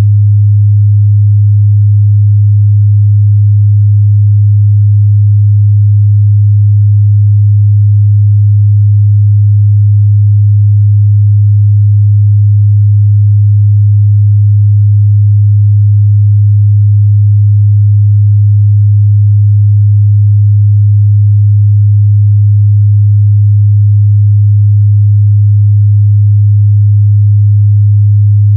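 Steady 103 Hz sine-wave test tone, a low, constant mid-bass hum that doesn't change in pitch or loudness.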